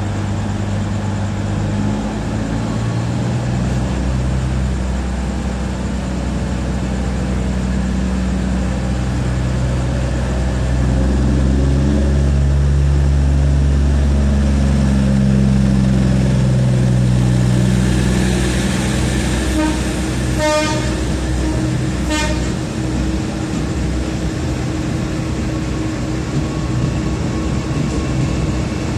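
Diesel train engine running with a deep drone that swells louder through the middle and then eases off, followed by a brief hiss and two short horn toots about a second and a half apart.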